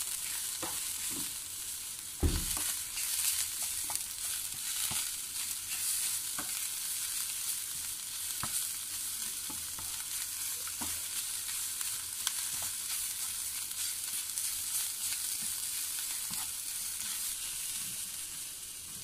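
Chopped onions and dry spices sizzling in mustard oil in a white-coated frying pan while being stirred and roasted with a wooden spatula: a steady sizzle with scattered scrapes and taps of the spatula on the pan, and a dull knock about two seconds in.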